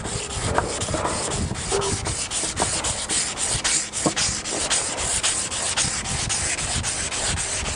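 400-grit emery tape being pulled back and forth by hand around a steel winch shaft, polishing the bearing and seal surfaces: a steady rasping rub in a quick, even rhythm of strokes.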